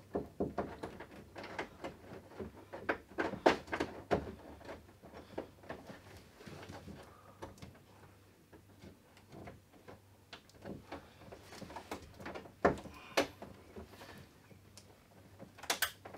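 Scattered knocks, taps and clicks of a network data cable plug being fumbled into the data socket on the back of a wall-mounted TV by feel, with a cluster of sharp clicks near the end as the plug clicks in.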